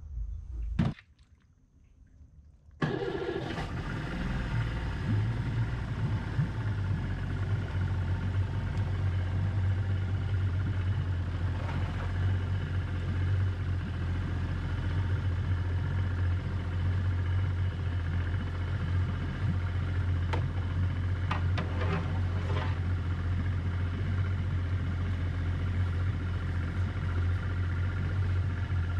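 A knock and a few seconds of near quiet, then from about three seconds in a small skiff's outboard motor idling steadily with a low, even hum.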